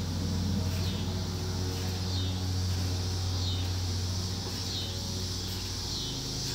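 A steady low mechanical hum, with a faint high chirp repeating about every second over a steady high hiss.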